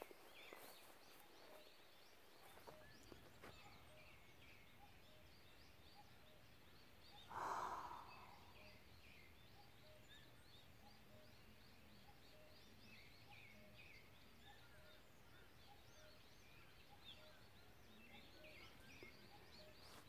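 Faint, distant birdsong at dawn: many small birds chirping, with a low note repeating a little under twice a second through the second half. About seven seconds in comes one short breath-like rush close to the microphone.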